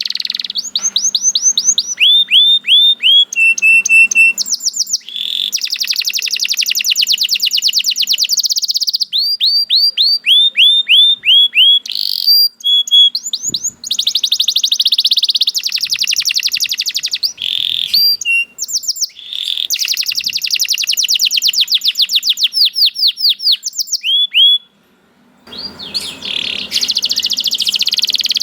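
Domestic canary singing a long, loud song made of fast rolling trills alternating with runs of repeated rising whistled notes. The song breaks off briefly about three-quarters of the way through, then resumes.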